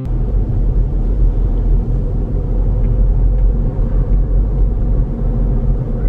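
Steady low rumble of road and engine noise heard from inside the cabin of a moving car.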